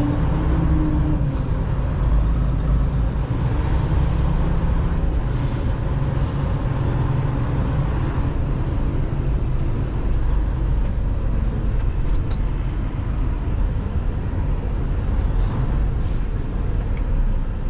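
Semi truck's diesel engine running steadily at low speed, heard from inside the cab as the truck creeps and turns.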